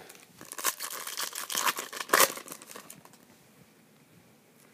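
Crinkling and rustling of a foil trading-card pack wrapper and the cards inside being handled, with a louder crackle just after two seconds; it dies down about three seconds in.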